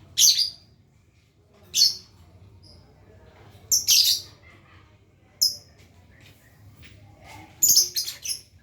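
Lovebird giving short, shrill chirping calls at irregular intervals, with a quick run of several calls near the end.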